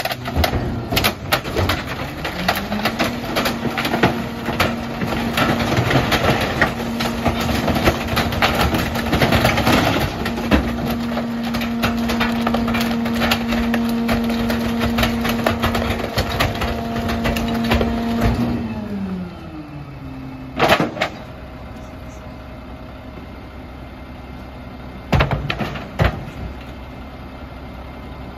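Mack LR garbage truck's diesel engine revved to a steady raised speed to drive the Heil 5000 rear-loader packer, with crackling and snapping of bulky junk being crushed in the hopper. About 18 seconds in the revs fall back to idle. Two loud knocks come later, near the end.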